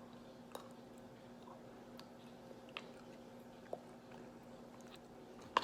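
Faint chewing with small wet mouth clicks as a strawberry is eaten, over a steady low hum.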